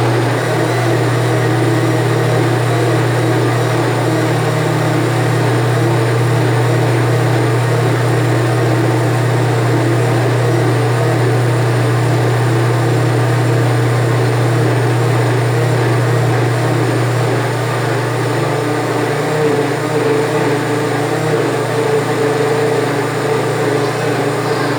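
Electric countertop blender motor running steadily, churning used cooking oil with detergent, vinegar, salt and liquid caustic soda into homemade soap.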